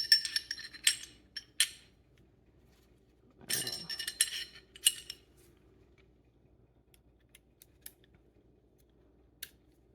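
Small metal pistol-slide parts clinking and rattling against each other as the slide is reassembled: a burst of ringing metallic clicks at the start, another a few seconds in, then a few light ticks.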